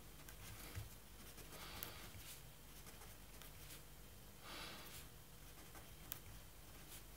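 Faint sound of a pen writing on paper: a few soft strokes and light ticks against quiet room tone.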